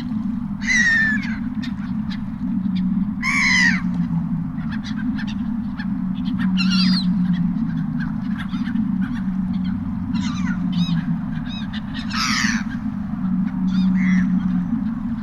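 Seagulls crying, about six loud harsh calls two to three seconds apart, over a steady low rumble.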